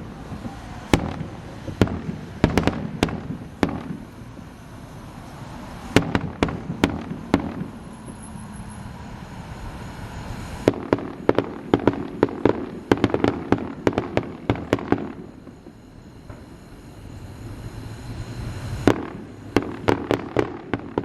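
Aerial fireworks going off in rapid volleys of sharp bangs and crackles, with two short lulls between the clusters.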